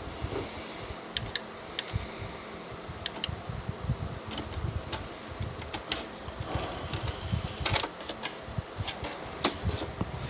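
Denon DVD-M330's disc loading mechanism at work: scattered sharp clicks and a brief whir of its small motor, twice, as the disc lift fails to rise. The loudest click comes near the end.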